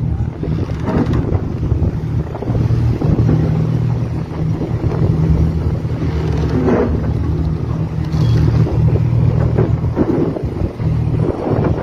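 Strong gusty wind blowing against the microphone over a steady low hum, in stormy weather on a ferry crossing.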